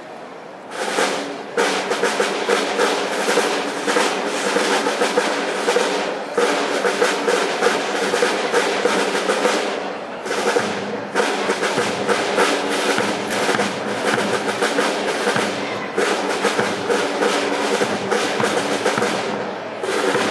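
Brass band playing a piece, brass over snare and bass drum, starting about a second in, with a few brief breaks in the phrasing.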